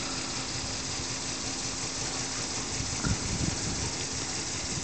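Model elbow engine ticking over slowly on about 20 psi: a steady hiss of its exhaust and running. A brief low rumble about three seconds in.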